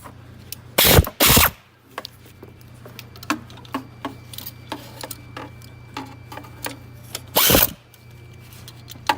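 A power tool runs in three short bursts, two close together about a second in and one near the end, with light tool clicks in between. The bolts holding the power steering pump are being tightened.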